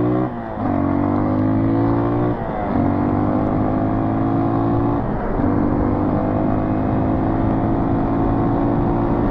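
Single-cylinder four-stroke dirt bike engine pulling under load as it is ridden, its pitch climbing in each gear and dropping sharply at three upshifts, the last about five seconds in, then holding a steady cruise.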